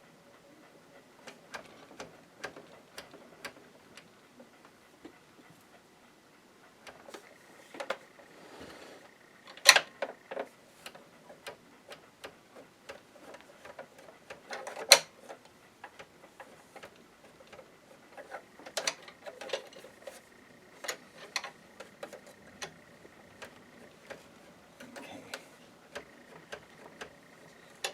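Irregular clicks and knocks of hand tools and plastic parts as the plastic side cover of a Janome ME4014 sewing machine is worked loose, with two sharper knocks about ten and fifteen seconds in.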